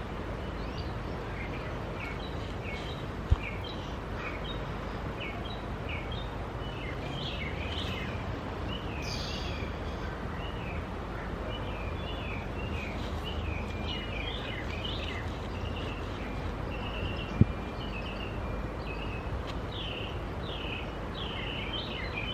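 Songbirds chirping, many short repeated calls, over a steady low background rumble. Two sharp knocks, one a few seconds in and one about three-quarters of the way through.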